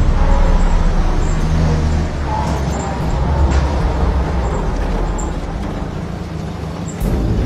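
Car engine running low as a vintage sedan rolls slowly up a driveway and draws to a halt, the rumble easing off toward the end.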